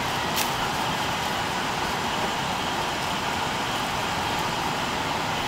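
Steady rushing of a nearby river, an even unbroken wash of water noise, with a single faint click about half a second in.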